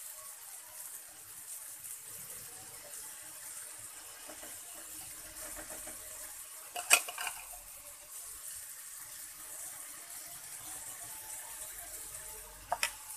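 Marinated chicken pieces sizzling steadily in hot oil in a flat frying pan on high heat as leftover marinade is spooned over them. A steel spoon clinks sharply once about seven seconds in, and twice more near the end.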